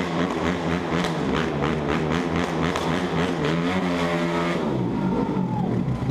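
Dirt bike engine running and revving under the rider's throttle, rising in pitch about four seconds in and then dropping away sharply as the throttle closes. A faint steady high tone comes in near the end.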